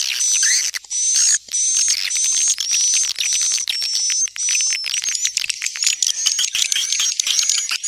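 Swiftlet calls, a dense run of rapid high chirps and twitters: the 'suara panggil walet' lure call played to draw edible-nest swiftlets into a nesting house.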